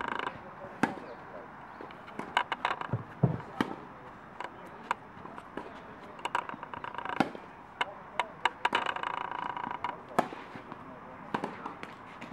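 Tennis rally: sharp pops of racket strings striking the ball, with ball bounces in between, coming every second or so.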